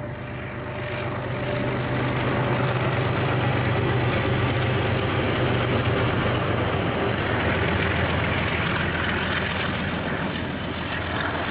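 Diesel locomotive engine running as a train passes, growing louder over the first two seconds and then holding steady, its low engine note dropping lower a little past halfway.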